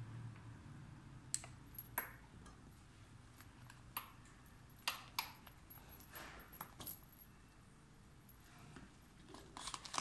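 Small, irregular clicks and taps, with a little scraping, from hands fitting a joystick cable and working with a screwdriver on a folding power wheelchair's frame; the clicks bunch together near the end.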